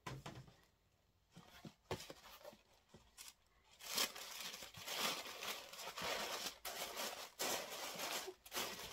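Packaging being handled as a gift box is opened: a few soft taps and rustles, then from about four seconds in a continuous crinkling and rustling of paper.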